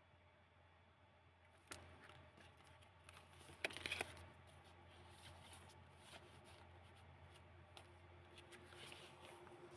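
Faint handling of the old paper pages of a handmade journal: a sharp rustle about two seconds in, a louder crinkling flurry around four seconds, and light rustles near the end.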